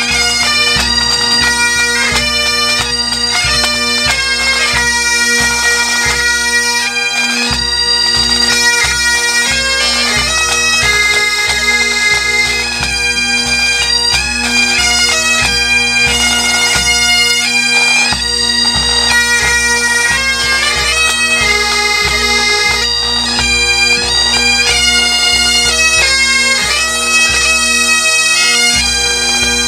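Pipe band playing: several Great Highland bagpipes sound a tune over their steady drones, with drums beating time underneath.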